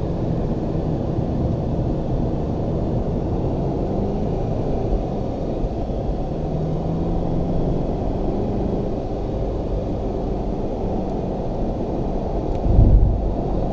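Car engine and tyre noise heard from inside the cabin, running steadily at speed, with a brief louder low rumble near the end.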